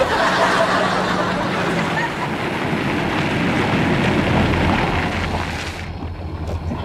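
Car pulling over: steady tyre and road noise with the engine running underneath, the tyre noise dropping away about six seconds in.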